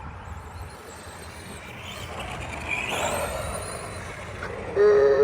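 Arma Granite Boost RC truck's brushed 550 electric motor whining, rising and falling as the throttle is worked. Near the end a loud steady pitched tone sounds for under a second.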